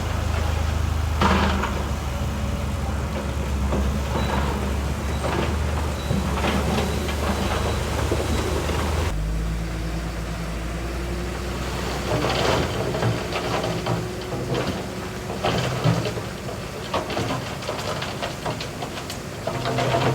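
Heavy diesel engine of earthmoving machinery running steadily, with scattered clanks and knocks. The engine note changes abruptly about nine seconds in.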